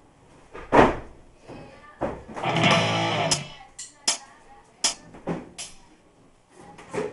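Scattered sharp hits and one chord ringing for about a second, from a band's instruments sounded singly at irregular moments rather than played as a song.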